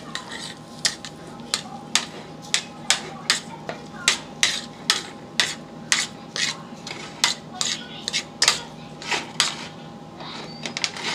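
A spoon stirring mashed potato in a pan, knocking and scraping against the pan about two to three times a second.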